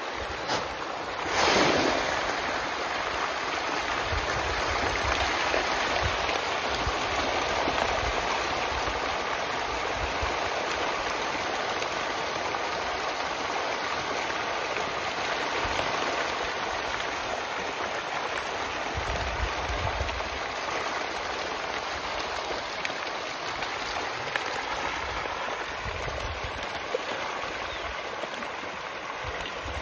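Many fish splashing and churning at the surface of a fish pond in a feeding frenzy over feed pellets: a steady, dense splashing noise, with a louder brief burst of splashing about a second and a half in.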